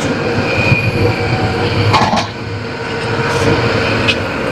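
Steady rumbling noise with a faint constant hum from a lit gas burner under a covered steel wok of fish braising in soy sauce. There is a light metal clink about four seconds in as the wok lid is lifted.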